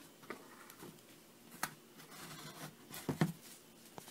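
Light handling noise: a few soft clicks and knocks, the loudest cluster about three seconds in, with faint rustling between them.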